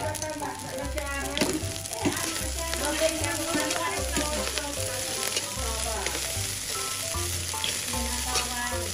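Fried rice with egg and sausage sizzling in a large pan as a metal ladle stirs and scrapes through it, with occasional sharp clicks of the ladle against the pan. Background music plays throughout.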